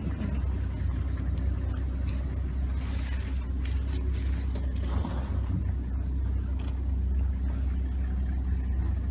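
Safari game-drive vehicle's engine idling steadily, a low even rumble.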